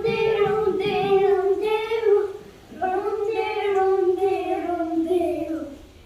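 A young girl singing in long, held high notes, two phrases with a short break about two and a half seconds in.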